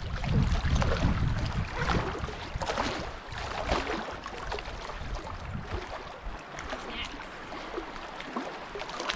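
Rustling and light knocks of gear being handled and loaded into a canoe. A low rumble of wind on the microphone fills the first couple of seconds.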